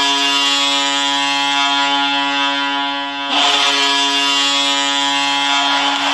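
Boston Bruins goal horn sounding a steady, deep, reedy tone in two long blasts, the second starting about three seconds in.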